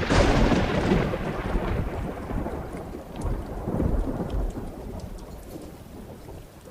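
A thunderclap that breaks suddenly and rolls away in a long rumble over steady rain, swelling again about halfway through before dying down near the end.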